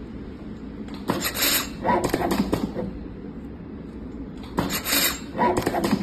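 Tape wrapping machine for wire harnesses running its wrapping cycles: two short clattering mechanical bursts about a second in, and two more near the end, over a low steady hum.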